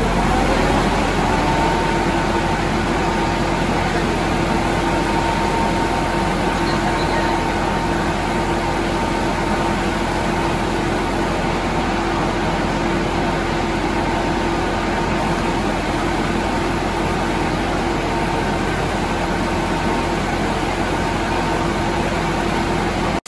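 An engine running steadily under a loud, even rushing noise. A steady whine of two held tones comes in about a second and a half in and fades near the end.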